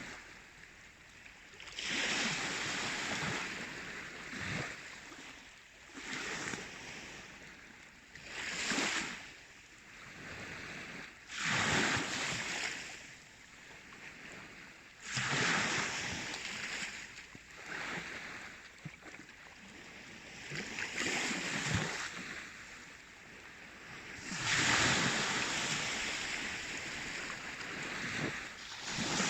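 Baltic Sea waves washing in, a swell of surf noise rising and falling back every few seconds, with some surges louder than others.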